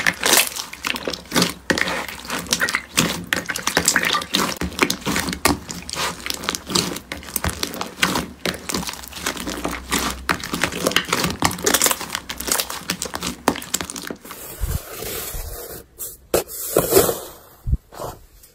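Hands squeezing and kneading soft slime in a bowl: a dense run of wet squelching clicks and small pops. About 14 seconds in it changes to a hand pressing into slime studded with foam beads, with sparser crackles and squishes.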